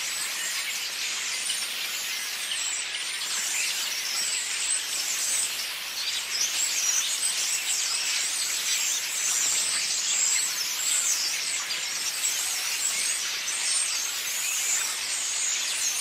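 A large flock of small birds chattering together in the trees: a dense, continuous twittering of many overlapping chirps, growing busier about six seconds in.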